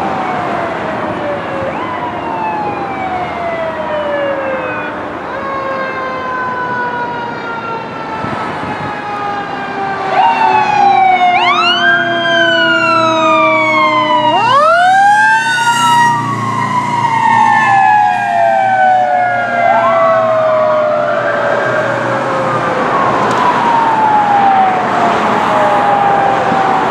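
Fire engine siren (1990 Pierce Lance pumper) wailing as the truck responds, its pitch rising quickly and then falling away slowly, over and over. It gets louder about ten seconds in as the truck draws near.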